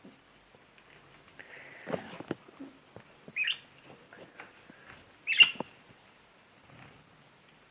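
Budgie bathing in water: scattered small splashes and pattering, with two short, sharp louder sounds a second or two apart, the second the loudest.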